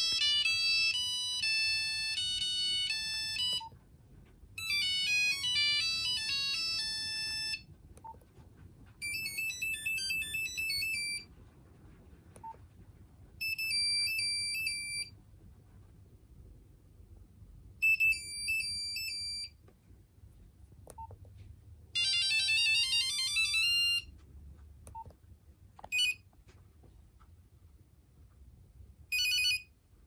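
Nokia 6190 monophonic built-in ringtones previewed one after another while scrolling the ringtone list: about six short beeping melodies with pauses between, one of them a fast rising run of notes. Short single key beeps fall in some of the gaps.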